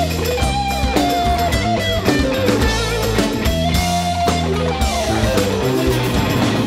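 Live rock band playing an instrumental passage: an electric guitar lead of held notes over bass guitar and drum kit.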